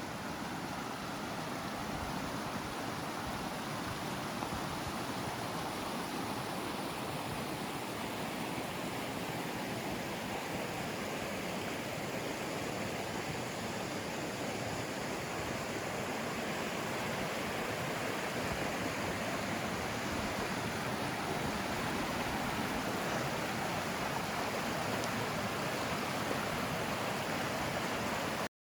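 Steady rushing water of a mountain stream, growing slightly louder and then cutting off suddenly near the end.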